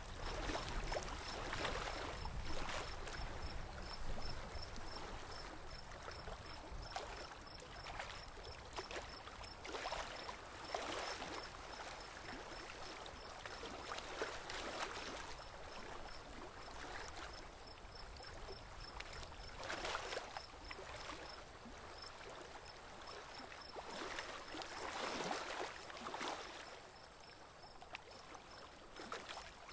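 Water splashing and sloshing against a small boat gliding slowly on a calm river, in uneven swells every second or two. A faint, rapid high ticking sits underneath.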